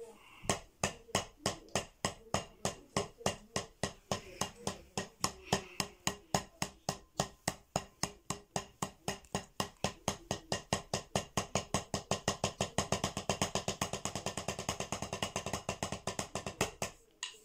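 Drumsticks striking a rubber practice pad in a paradiddle sticking pattern, a steady run of crisp taps that gradually speeds up and stops about a second before the end.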